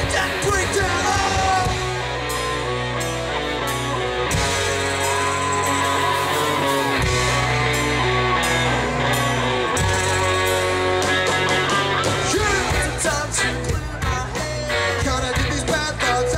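A live reggae-punk band playing loud on electric guitars, bass guitar and drums, with the singer's voice over it. The bass holds long notes through the middle, and the drumming gets busier near the end.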